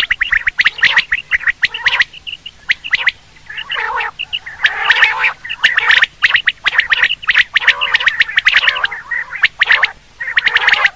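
Quail calls: dense runs of rapid, rasping chatter, with brief lulls about two seconds in and near the end.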